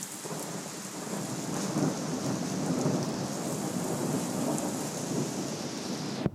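Heavy rain pouring down in a thunderstorm, heard from under a metal garage roof: a dense, steady hiss of rain that swells louder in the middle with a deeper rumble underneath, then cuts off suddenly at the end.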